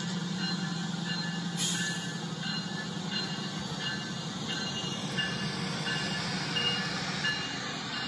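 A train running: a steady low hum with a light sound repeating a little under twice a second.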